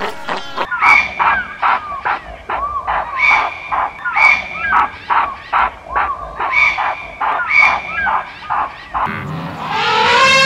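A series of short animal calls, about one a second. Near the end an African elephant begins a long, steady trumpet call.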